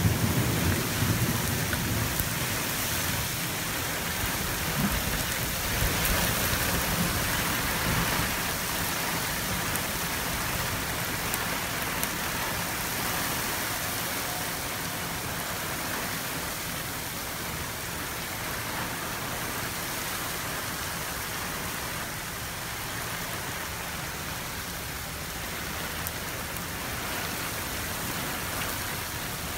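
Heavy rain pouring onto flooded desert ground, a steady hiss that eases slightly toward the end. A low rumble of thunder dies away in the first second or two.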